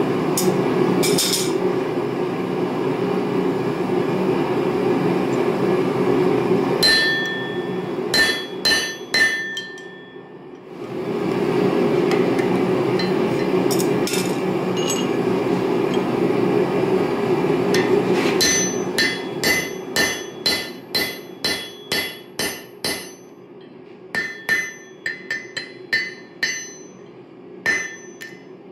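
Hand hammer blows on a red-hot railroad-spike hammer head on the anvil, each strike ringing. A few blows come about seven seconds in, then a steady run of about two a second through the last ten seconds. Under the first two-thirds a steady roar runs, cutting out briefly around ten seconds and stopping as the hammering starts.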